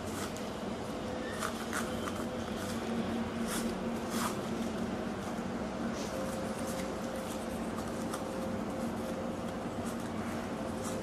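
Strips of young coconut palm leaf rustling and crackling now and then as they are woven by hand into a ketupat casing, over a steady low hum and hiss.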